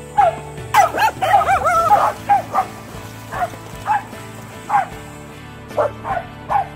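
Corgi barking over and over in short, high-pitched barks: a rapid run of barks between about one and two seconds in, then single barks every half second to a second.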